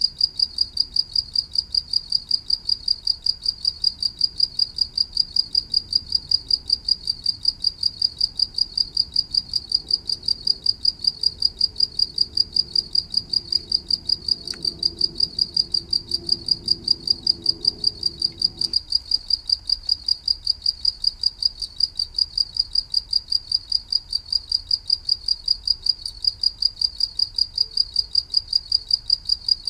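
A cricket chirping steadily in an even, rapid run of identical high-pitched pulses. A faint low rumble underneath stops abruptly about two-thirds of the way through.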